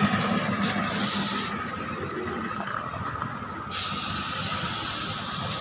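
A steady hiss of street noise that grows louder about four seconds in.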